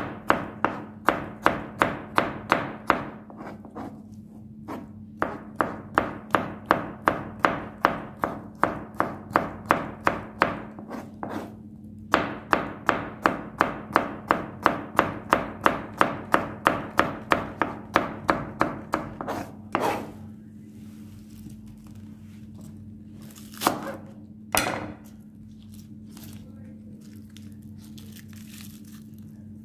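Kitchen knife slicing cucumber on a cutting board: quick, even knocks of the blade on the board, about four to five a second, in three runs with short pauses between, then only a few single knocks near the end.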